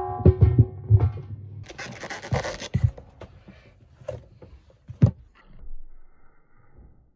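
Music with a thumping beat cutting out about a second in, followed by a rubbing, scratching sound and a few light knocks.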